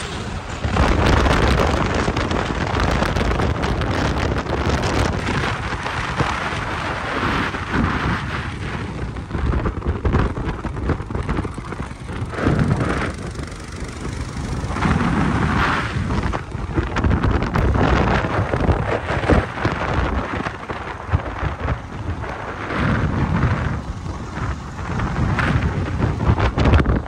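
Wind buffeting the microphone on a moving motorcycle: a loud, rough rush with a deep rumble that swells and dips in gusts.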